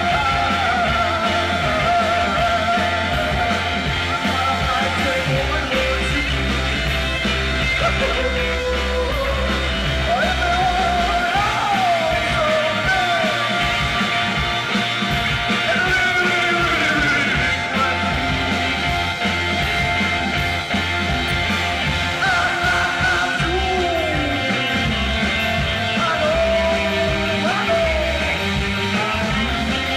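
Rock band playing live: electric guitar, keyboard and drum kit, with a voice singing over them.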